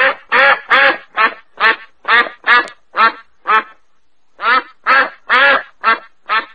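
White domestic duck quacking over and over in a steady run of short loud quacks, about two or three a second, with a brief pause a little past halfway before the quacks resume.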